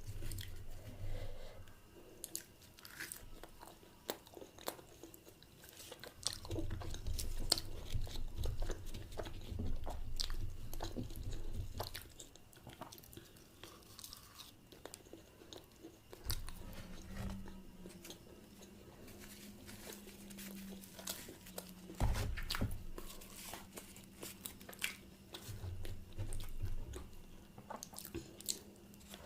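Close-miked eating: biting and chewing with wet mouth clicks and smacks, and stretches of low thudding chewing.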